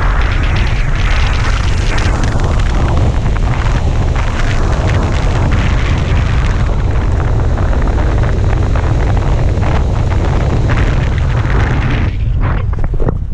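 Wind buffeting a parachutist's helmet camera microphone under canopy on final approach: a loud, steady rushing with heavy low rumble. About a second before the end it drops off sharply to weaker gusts as the jumper slows for landing.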